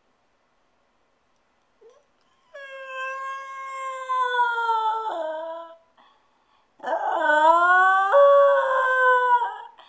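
Jack Russell terrier howling while left home alone, a sign of separation distress. Two long howls after a quiet start: the first slowly falls in pitch, the second rises and then jumps up in pitch.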